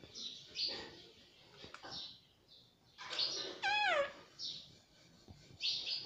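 Indian ringneck parrot calling: a string of short harsh squawks, with one longer wavering call that falls in pitch a bit past the middle.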